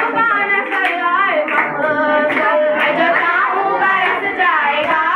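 A girl's voice singing a song through a microphone and loudspeaker, with some hand clapping along.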